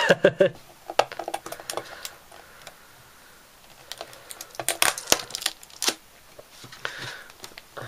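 Clear hard-plastic display case and cardboard packaging being handled: scattered plastic clicks and knocks with rustling and sliding, the busiest cluster about five seconds in.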